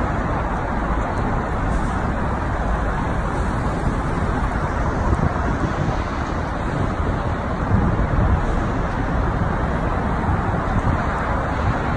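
Steady road traffic noise: an even wash of passing vehicles with no single vehicle standing out.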